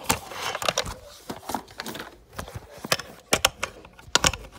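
Stiff cardboard pages of a board book being turned and handled: a run of sharp clicks and rustles, loudest near the end.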